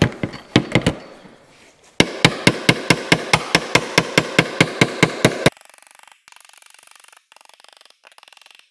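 Body hammer striking the sheet steel of a 1948 Plymouth fender against a dolly held behind it, to raise low spots: a few blows at first, then a fast even run of about five blows a second that stops abruptly a little past halfway.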